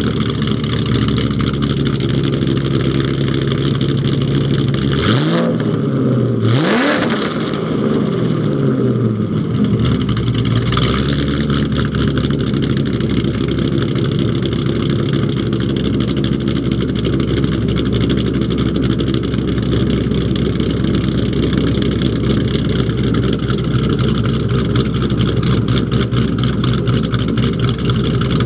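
2010 Ford Mustang GT's 4.6-litre V8, fitted with Hot Rod Cams camshafts, idling loudly. About five seconds in it is revved twice in quick succession, the pitch rising and falling each time, then it settles back to a steady idle.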